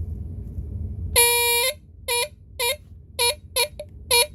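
Guardian FB1A 9-volt 'squealer' smoke alarm sounding on test: one loud half-second blast about a second in, then short, unevenly spaced blasts.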